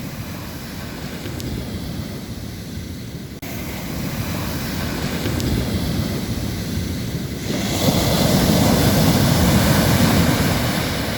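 Ocean surf: waves breaking and washing on a sandy beach in a steady hiss and rumble. A bigger wave breaks about seven and a half seconds in, bringing a louder, brighter rush that eases off near the end.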